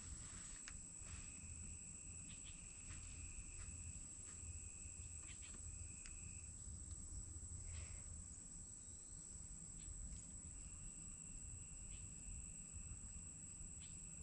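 Faint, steady high-pitched insect trilling, with a second, lower trill that starts and stops in stretches of a second or more, over a low rumble and a few small clicks.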